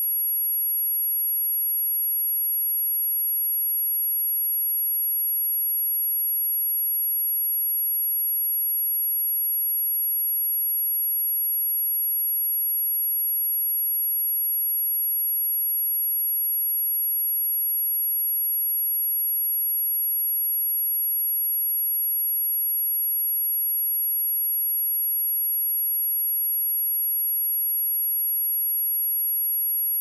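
A single pure sine-wave test tone at 11388 Hz, very high-pitched and held perfectly steady, played to test speakers or to shake water and dust out of them.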